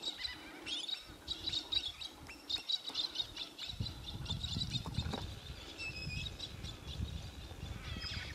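Small birds chirping and calling again and again in open country. A low rumble, like wind on the microphone, comes in about halfway through.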